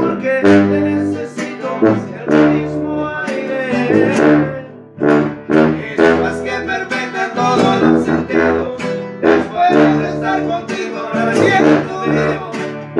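Live acoustic band playing: two acoustic guitars strummed in a steady rhythm over a sousaphone blowing the bass line, with held low notes that change about once a second.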